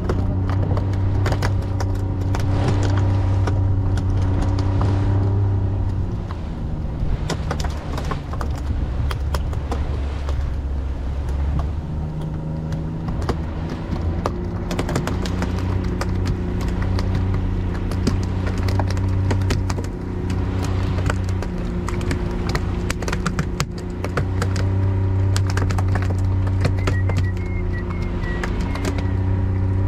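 Small fishing boat's motor running while trolling. Its pitch drops a few seconds in and picks up again twice, with frequent short clicks and knocks over it.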